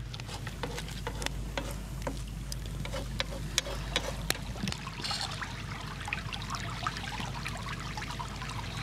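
Brook babbling over rocks: a steady rush of running water, with many small sharp clicks scattered through it.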